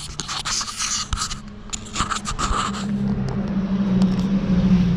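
Scraping, rustling and knocking as a person climbs out of a pickup truck's cab with the camera. From about halfway through, a steady low hum comes in and grows louder.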